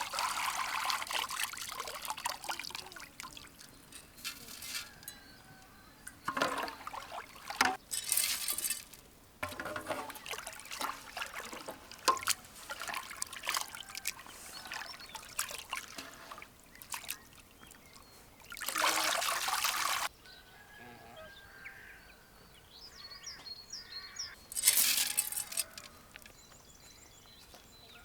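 Something poured in several bursts of hissing, trickling pour, some brief and one lasting several seconds, with faint bird chirps in the quieter second half.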